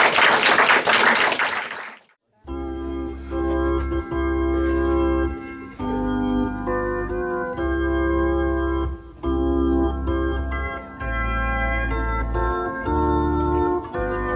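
Guests applauding, cut off about two seconds in; then organ music playing slow, sustained chords over a deep bass.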